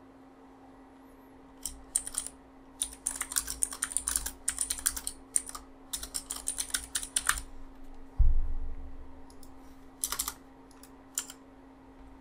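Typing on a computer keyboard: a quick run of key clicks lasting about six seconds, then a dull thump, then a few more keystrokes about ten seconds in.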